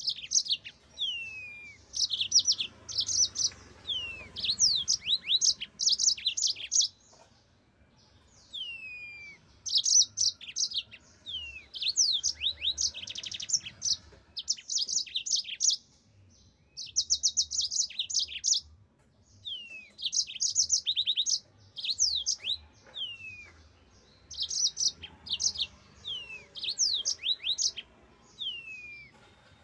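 Yellow-fronted canary (Mozambique canary) singing in full song: phrase after phrase of quick, high trills and falling whistled notes, with short pauses between the bursts.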